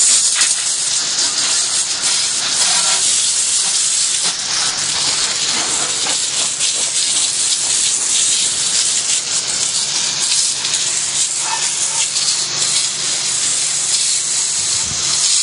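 Water jetting from a hose's pistol-grip spray nozzle onto a Carlyle 06E compressor, a steady loud hiss, as the coil cleaner is rinsed off.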